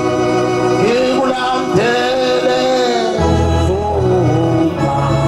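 A man sings a hymn line over sustained organ chords from an electronic keyboard, his voice entering about a second in and sliding in pitch. The organ's bass notes drop away while he sings and come back about three seconds in.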